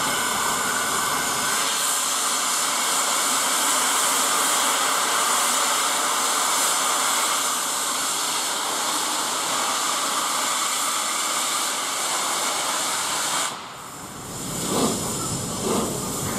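Steam hissing loudly and steadily from the open cylinder drain cocks of LNER A1 Peppercorn Pacific 60163 'Tornado', a three-cylinder 4-6-2, as it starts its train. The hiss cuts off suddenly near the end, and the first slow exhaust beats follow, about one a second.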